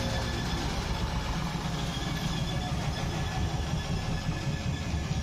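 Zanussi washing machine running with its shock absorbers removed: a steady low rumble from the drum and motor, with a faint thin whine above it.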